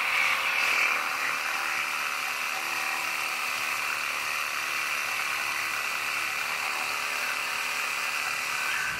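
Small handheld cordless power tool running steadily at high speed while working in an oval hole in the pickup's steel frame rail. It cuts off abruptly near the end.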